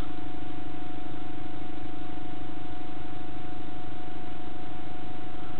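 Bedini motor running, a steady hum with a hiss beneath it that holds even throughout.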